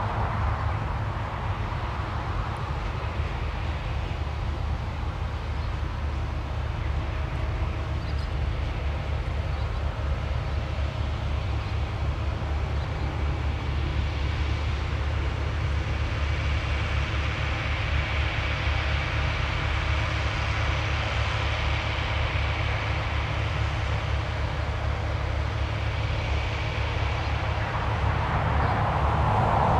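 Distant engine noise over a steady low rumble: a higher, hissing engine sound swells from about the middle and fades again near the end.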